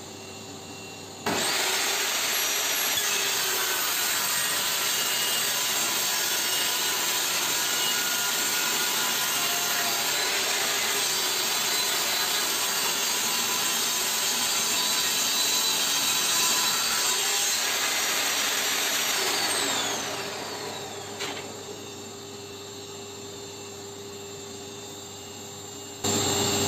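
Modern M608 table saw switched on, whining up to speed about a second in, then ripping a solid pine board with its stock blade. It is switched off about twenty seconds in and winds down with a falling whine.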